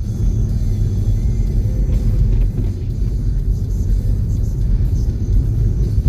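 Steady low rumble of a vehicle's engine and tyres on a snow-covered road, heard from inside the cab while driving.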